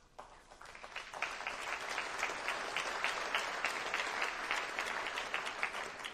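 Audience applauding: the clapping builds up over the first second, holds steady, and dies away near the end.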